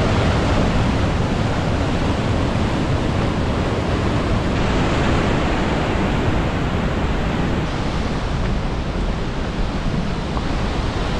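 Loud, steady rushing of a swollen mountain torrent, white water pouring over boulders in a rocky gorge; its tone shifts slightly twice.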